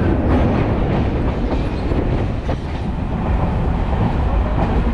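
Electric multiple-unit local train running at about 80 km/h, with a steady rumble and wheels clattering over the rail joints.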